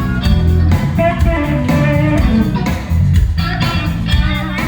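Live blues band playing: electric guitar over a bass line.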